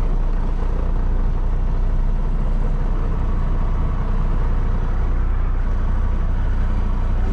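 Kenworth T680 semi truck's diesel engine running steadily at low revs, heard from inside the cab, while the truck creeps backward with its trailer.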